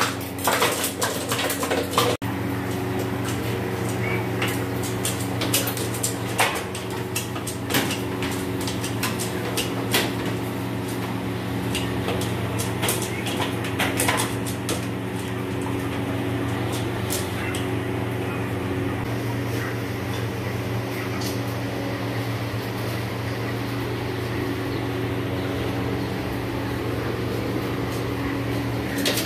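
A slaughtered chicken thrashing head-down in a metal killing cone, its wings clattering and knocking against the metal in irregular bursts, most often in the first half. Under it runs a steady low machine hum.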